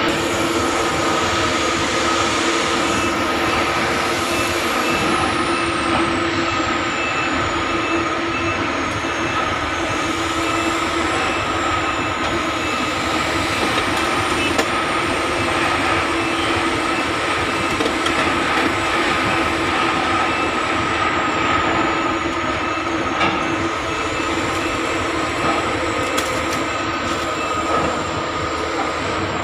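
Heavy diesel construction machinery, a rotary bored-pile drilling rig and a crawler crane, running steadily with a constant hum and a high thin whine that slowly drifts up and down in pitch.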